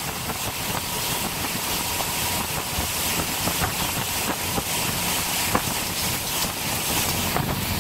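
Wind buffeting the microphone over the rush and slap of lake water, heard from aboard a boat: a steady, loud noise with many small knocks and splashes in it.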